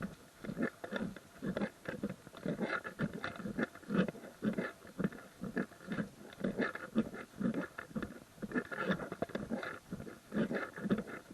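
Footsteps of hikers walking on a trail, in a steady rhythm of about two steps a second.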